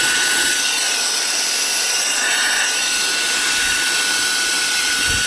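Reikiya HV-C11 cordless handheld vacuum/blower running in blower mode with a nozzle attachment fitted: a steady rush of air with a high, even motor whine. The attachment restricts the airflow, so air also escapes around the body.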